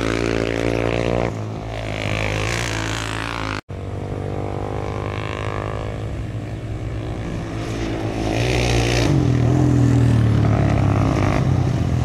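Racing quad (ATV) engines revving, their pitch rising and falling as they run the dirt track. The sound breaks off briefly a little under four seconds in, and it grows louder from about eight seconds in as a quad comes up to the finish line.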